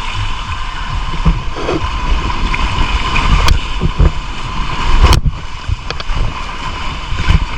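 Wind buffeting the microphone over rushing water on a fast, bumpy water-park boat ride, with several sharp knocks as the ride jolts.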